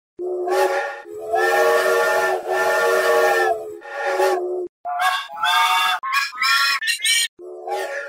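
Steam locomotive whistle as a sound effect. It gives four steady blasts, one short, two long and one short. The same whistle then comes back altered into quicker toots that climb higher and higher in pitch, and a lower blast starts near the end.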